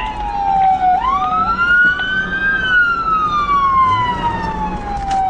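Police car siren on a slow wail: it rises about a second in, falls slowly for several seconds, and starts rising again near the end. Engine and road noise run underneath.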